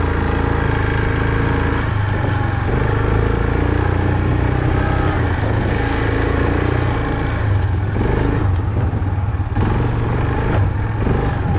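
Small vehicle engine running steadily, a constant drone with no change in speed.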